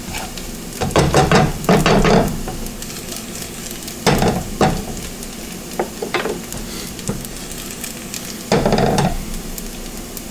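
Minced garlic sizzling in hot oil in a wok, a steady hiss, while a wooden spatula stirs it. The stirring comes through as a few louder scraping bursts, about a second in, around four seconds in and again near the end.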